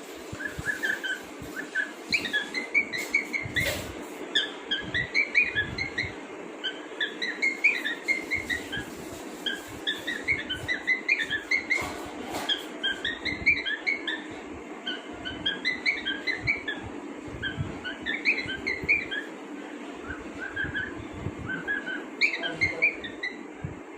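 Cockatiel whistling its copy of an iPhone ringtone: short phrases of quick high notes, repeated every second or two.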